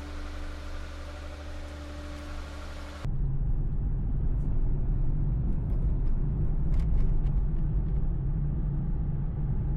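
Steady drone of a running engine that jumps abruptly, about three seconds in, to a louder deep rumble.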